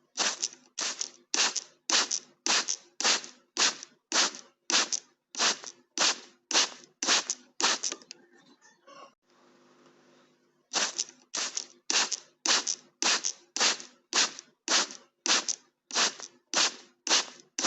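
Hand spray bottle of water squirted again and again, short hissing spurts about two a second, pausing once for a couple of seconds about eight seconds in before the spurts start again.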